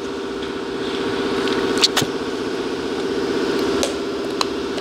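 A steady mechanical drone of an engine or motor running, with a few light clicks.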